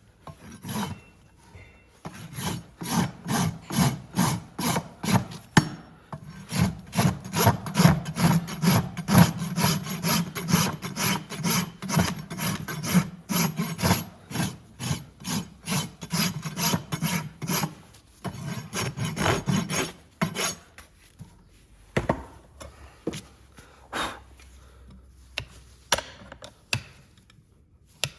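Hoof rasp filing a horse's hoof in rapid, even strokes, about two a second. The strokes stop about two-thirds of the way through, and a few scattered knocks follow.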